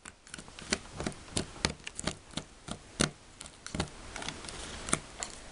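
Irregular light clicks and taps of a small plastic spoon poking and scraping moist candy paste in a plastic kit tray, with fingers handling the tray, about three or four a second, one a little louder about three seconds in.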